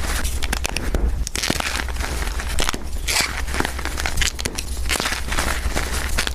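Blocks of fresh gym chalk and reformed chalk being crushed by hand: a dense run of dry crunches and crackles.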